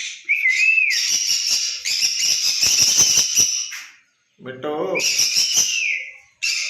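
Pet parrot calling: short gliding whistles with a long harsh screechy stretch between them.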